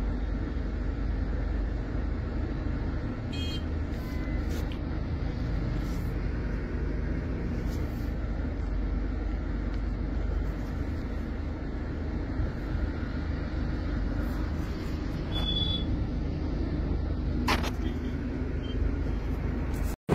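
Steady low rumble of a car's engine and road noise, heard from inside the cabin in slow-moving traffic, with a few faint, brief high-pitched sounds over it.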